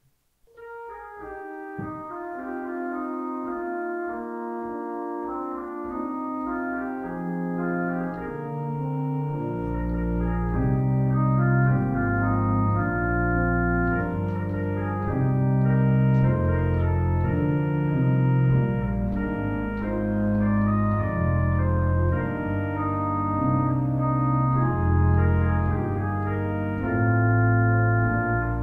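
Instrumental music: held organ chords with a melody on top, joined by a low bass line about ten seconds in.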